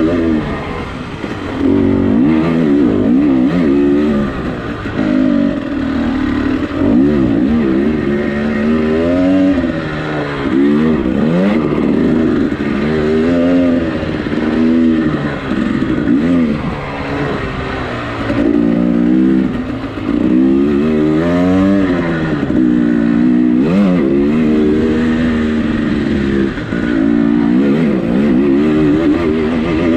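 Dirt bike engine revving hard and falling back again and again, its pitch climbing and dropping many times as the bike is ridden over rough dirt track.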